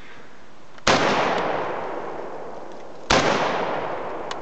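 Two shots from an AK-pattern rifle, about two seconds apart, each followed by a long echo dying away.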